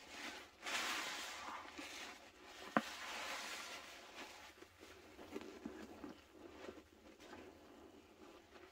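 A porous sponge squeezed and worked by hand in a bowl of thick pine-cleaner suds: wet squelching and crackling foam that swells with each squeeze and eases off between them, with one sharp click about three seconds in.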